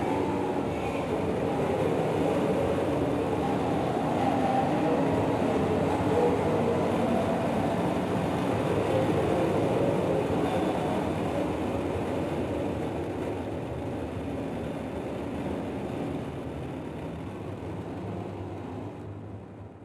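Electroacoustic concert piece: a thick, dense mass of low noise, steady at first, then slowly fading and dropping away just at the end.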